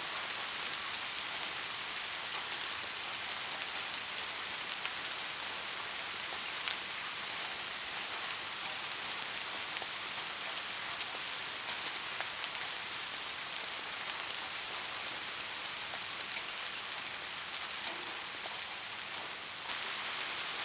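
Steady rain falling: a dense, even hiss with scattered ticks of single drops. It eases a little shortly before the end, then comes back abruptly.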